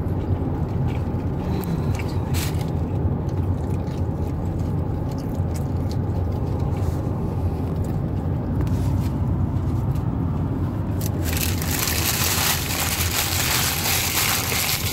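Steady low hum of a car's interior, with a few faint clicks; from about eleven seconds in, loud crinkling and rustling of a fast-food wrapper and paper bag being handled.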